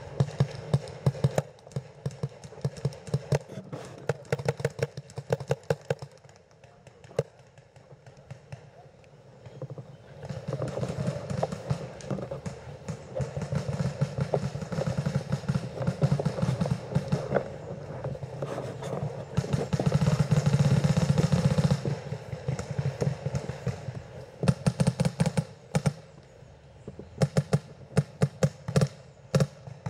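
Paintball markers firing, a long series of short popping shots, some in quick strings. In the middle a louder stretch of running footsteps through grass with gear rustling.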